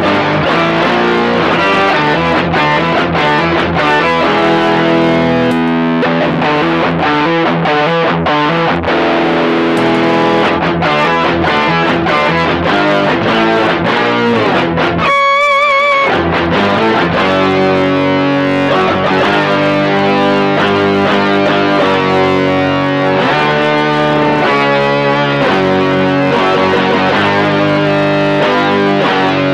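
Distorted electric guitar played through an Electro-Harmonix Micro POG polyphonic octave generator, sub-octave and octave-up voices blended with the dry signal, playing power-chord riffs that the octaves make fuller and tighter. About halfway through, one note is held with vibrato before the chords resume.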